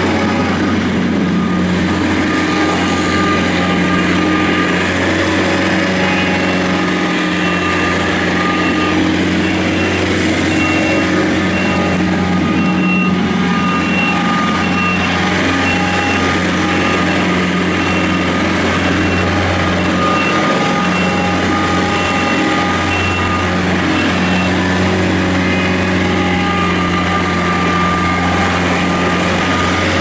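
2005 John Deere 110 tractor loader backhoe's 43 hp diesel engine running steadily while the hydrostatic-drive machine is driven around. Through the middle a faint high tone comes and goes.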